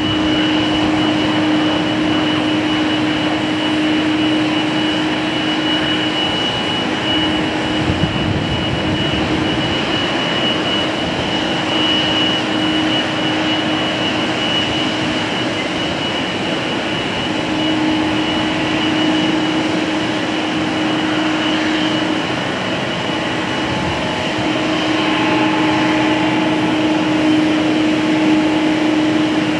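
Boeing 777's twin jet engines running at taxi power: a steady rush of engine noise with a high whine held on one pitch and a lower hum beneath it.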